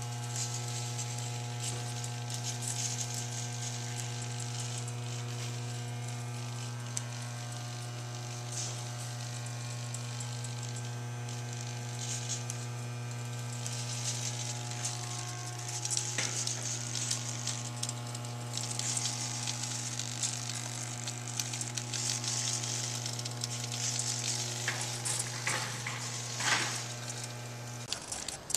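A steady low hum with several fixed, unchanging tones above it under a crackling hiss, cutting off abruptly just before the end.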